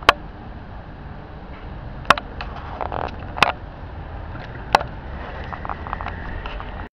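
Handling noise on a handheld camera's microphone: four sharp knocks about a second or two apart, with rustling and a few light ticks, over a steady low outdoor rumble.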